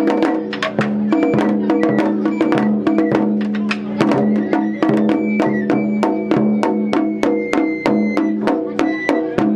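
Japanese festival hayashi music: drums struck rapidly and evenly, about five strikes a second, over steady held tones.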